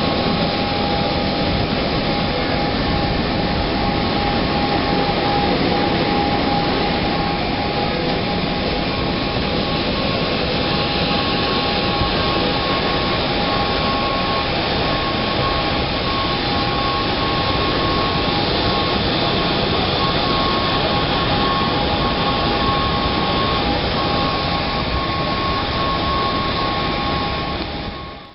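Steady turbine whine and rush of jet aircraft on the airport apron, with two steady tones over the noise. It fades out just before the end.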